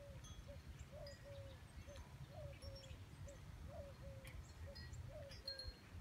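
Faint outdoor ambience: an animal calling over and over in short, mid-pitched notes about every half second, with light wind-chime tones and a low rumble underneath.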